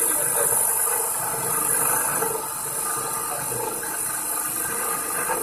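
TU-2A CNC training lathe running, a steady machine noise with a high hiss over it.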